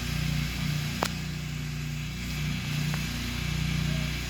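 Massey Ferguson riding mower's 23-horsepower V-twin engine running under way, its note swelling and fading in an uneven lope that the rider puts down to a high-performance cam. There is a sharp click about a second in.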